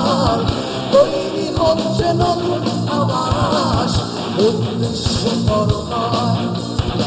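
Rock band playing live: a male lead vocal over electric guitar, bass guitar and a drum kit.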